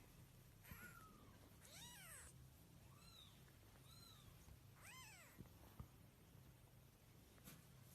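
A cat meowing faintly, about five short meows that each rise and fall in pitch, spaced roughly a second apart, with a couple of small clicks in between.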